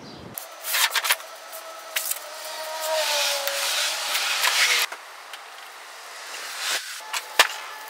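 Rubbing and scraping noises in several stretches, the longest in the middle, with a sharp click near the end.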